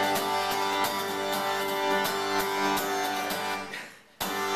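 Acoustic guitar strumming chords, with keyboard accompaniment holding sustained notes, live on stage. The music dies away shortly before the end, then starts again abruptly.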